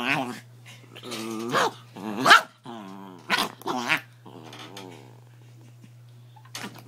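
Small dachshund-type dog growling and snarling while being teased, in a string of short rough bouts, about five in the first four seconds. One last short snarl comes near the end.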